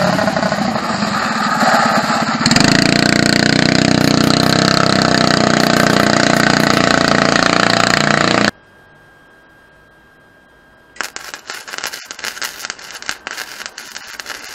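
Go-kart engine running loud at steady revs, cutting off abruptly about eight seconds in. After a short lull, the irregular crackle of an electric welding arc near the end.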